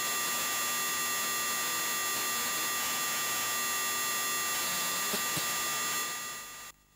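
Steady electronic hiss with several faint, steady high whine tones, with no speech or other event in it; it drops out abruptly to near silence near the end.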